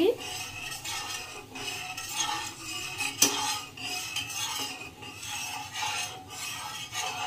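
Steel spatula stirring milk in a dark frying pan, scraping irregularly against the pan, with one sharper knock of metal on the pan about three seconds in. The milk is being stirred slowly while it heats toward the boil.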